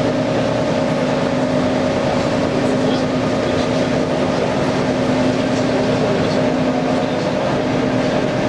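Steady machinery hum: two constant tones over an even rumble, with no change in level.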